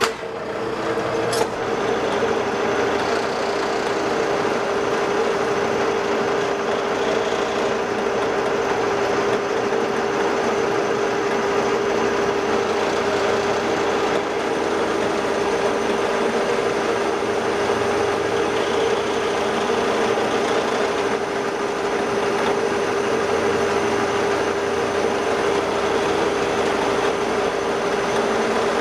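A metal lathe starts up and runs steadily through a light finishing skim cut on a steel bar held between the chuck and the tailstock center. There is a sharp click about a second and a half in, and a steady whine throughout.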